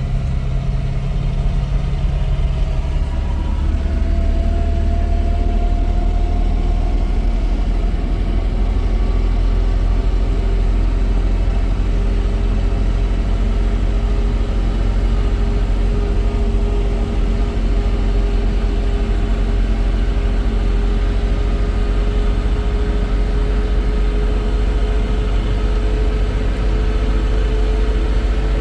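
Vehicle engine running steadily under a deep rumble, its hum rising slowly in pitch.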